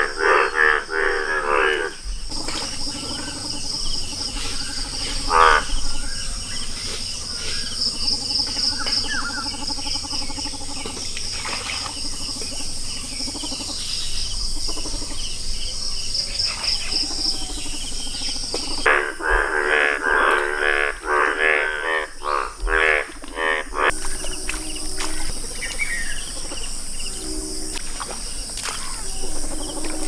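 Male Indian bullfrogs calling in a breeding chorus, in repeated pulsing croaks that come loudest in the first two seconds and again about two-thirds through. Insects trill steadily and high-pitched underneath, and the sound changes abruptly a few times where the footage is cut.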